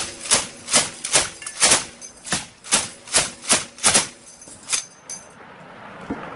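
Gunfire: a steady string of about a dozen sharp, loud shots, roughly two or three a second, which stops about five seconds in. A steady rushing noise follows near the end.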